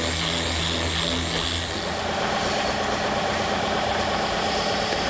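Random-orbit sander running on a mesquite frame joint, sanding the intersection flush; about two seconds in it gives way to a stationary bench sander running with a small piece of wood held against it.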